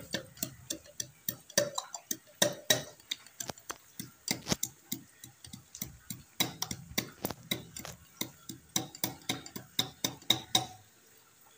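Wooden pestle pounding chopped ginger in a stainless steel tumbler: quick, regular knocks, about three to four a second, that stop shortly before the end.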